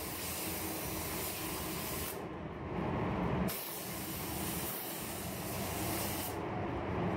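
Gravity-feed automotive spray gun hissing as it lays down single-stage paint in passes. The hiss stops about two seconds in, starts again a second or so later, and stops again near the end, with a steady low rumble underneath throughout.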